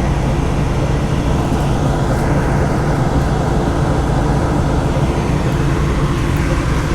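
John Deere S780 combine's engine running steadily at a constant speed, a loud even hum.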